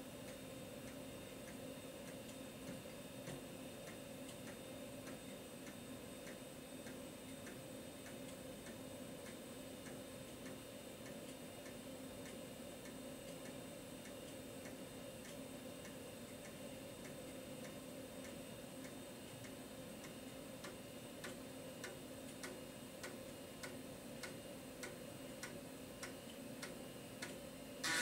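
3.5-inch floppy drive formatting a 720K diskette: the head steps track by track in regular clicks over a steady hum. A short, louder burst comes right at the end as the format completes.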